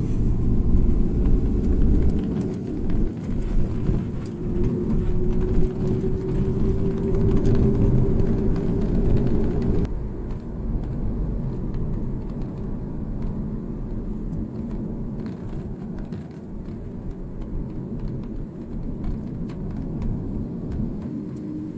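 Low rumble of a motor vehicle running, with an engine note rising slightly over the first ten seconds. About ten seconds in, the sound changes abruptly, becoming quieter and duller, and then carries on as a steady rumble.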